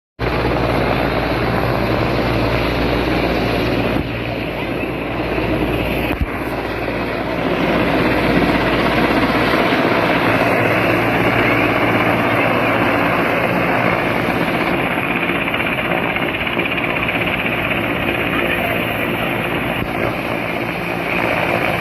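Helicopter flying low overhead, with steady rotor and engine noise; its low hum fades about ten seconds in while the rest of the noise carries on.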